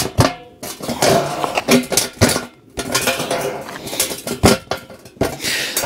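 Sheet-metal stove pipe sections clanking and scraping as one is pushed and pounded down into the crimped end of the next, a string of sharp metallic knocks.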